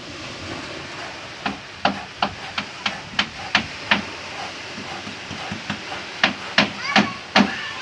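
Hammer blows on wood at a steady pace of about three a second, easing off for a moment midway and then coming hard again.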